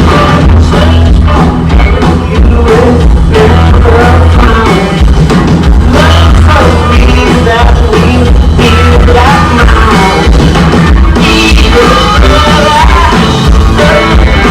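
Rock band playing live, loud, with electric guitar, bass and drums and a sung lead vocal, the low end heavy and dense.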